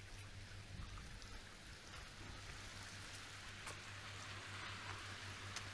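Faint, steady hiss of gentle surf washing over a rocky shore, with a few light clicks and a steady low hum underneath.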